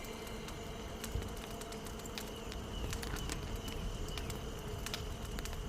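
Insects droning steadily in the background, with many faint scattered ticks.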